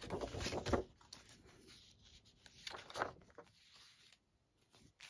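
Paper doll booklets and a plastic sleeve rustling as they are handled, in two bursts: one at the start and another about three seconds in, with a light tap near the end.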